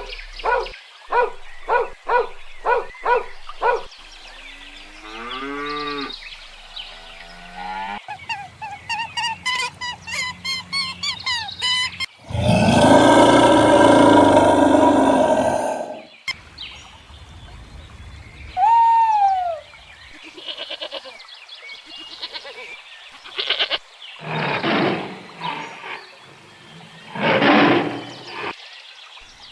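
A run of different farm-animal calls, one after another: quick repeated calls at the start, then pitched, wavering calls, and a loud, harsh call lasting about four seconds in the middle. A short falling note follows, and there are two more calls near the end.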